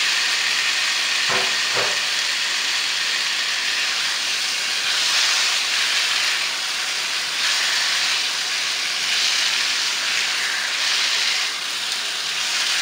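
Raw fish pieces sizzling in hot oil and curry paste in a nonstick wok: a steady frying hiss that swells and eases every second or two as a wooden spatula turns them. Two soft knocks about a second and a half in.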